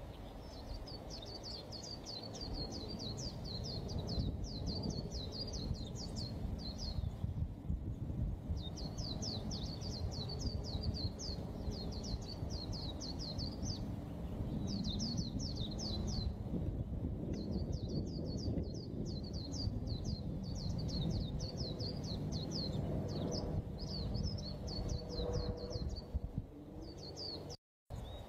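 White-eye (pleci) singing: long phrases of rapid, high twittering notes, each lasting a few seconds with short pauses between. A steady low background noise sits under the song.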